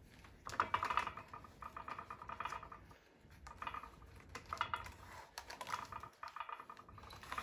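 Stitching thread being drawn through the leather welt and insole in about six short pulls, each a quick run of fine ticks lasting under a second.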